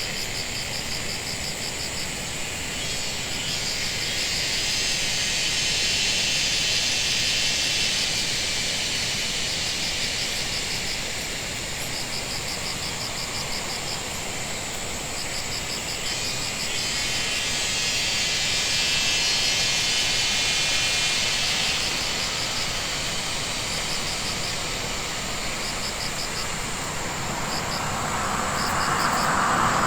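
Insects chirping in short, evenly pulsed bursts over a higher buzzing chorus that swells twice, with a steady low rumble underneath. A louder rushing noise rises at the very end.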